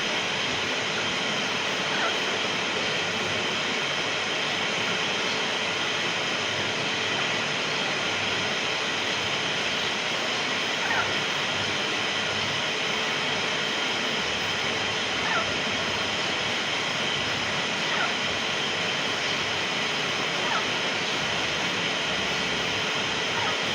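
Steady, even background noise with a faint hum in it, broken by a few faint, brief ticks or chirps every few seconds.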